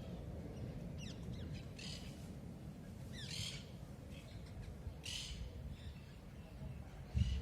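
A bird calling outdoors: about five short calls, one every second or so, over a low steady background rumble.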